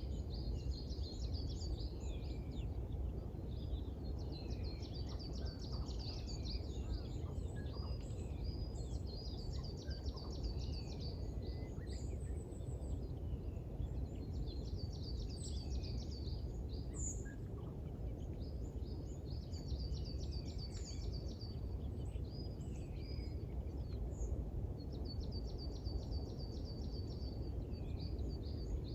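Small songbirds singing: rapid high trills that recur every few seconds, with scattered chirps and whistles, over a steady low background rumble.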